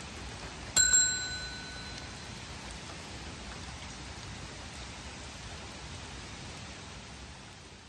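A single bright, bell-like chime about a second in, ringing out over about a second, over a steady hiss that fades near the end.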